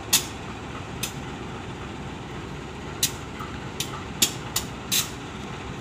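KAI diesel locomotive's engine running with a steady low rumble as it creeps forward in a shunting move. Short sharp clicks and knocks sound at uneven intervals, several of them close together in the second half.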